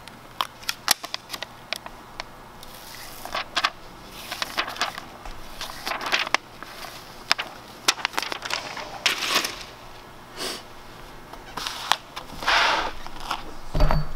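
Paper release backing being peeled and handled off a strip of sealant tape: crackling, rustling paper with scattered sharp clicks. A dull thump near the end.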